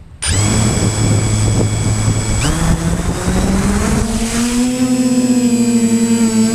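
Drone's electric motors and propellers spinning up abruptly from rest, then a steady buzzing whine that steps up in pitch a couple of times.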